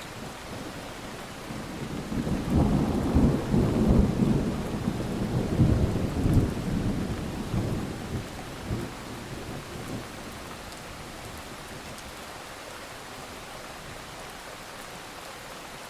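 Steady rain with a roll of thunder that builds about two seconds in, rumbles loudest over the next few seconds, and dies away by about ten seconds in.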